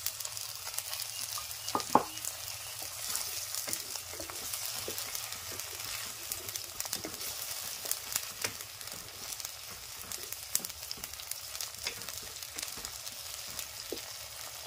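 Ground ginger, garlic, cumin and dry-chilli paste sizzling and crackling in hot mustard oil with fried onions in a kadai, while a wooden spatula scrapes and stirs through it. One sharper knock about two seconds in.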